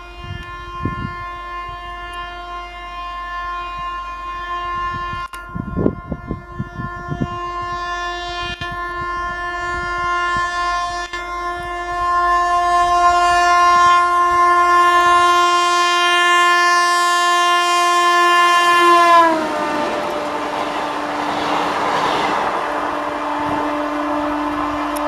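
WAP-7 electric locomotive's air horn held in one long blast as it approaches at high speed, growing louder. About nineteen seconds in the horn's pitch drops as the locomotive passes, and a loud rush of the passing train takes over while the horn carries on at the lower pitch.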